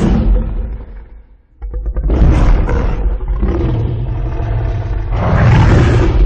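Godzilla-style monster roar sound effects. One roar fades out over the first second and a half; a second, long roar starts with a crackle and runs on over a deep rumble, swelling loudest near the end.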